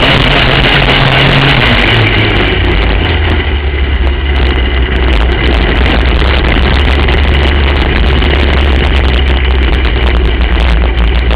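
Racing kart engine heard from onboard, loud and steady; its note drops to a lower pitch about two seconds in and then holds.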